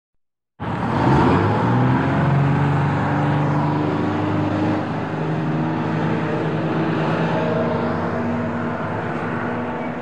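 Bus engine running. It starts abruptly about half a second in and rises in pitch as it speeds up, then holds fairly steady while slowly getting quieter.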